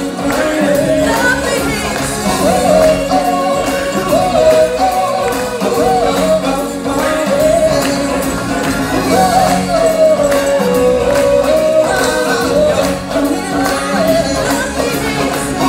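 Live stage-show music: a singer holds and slides between long notes over percussion and backing accompaniment.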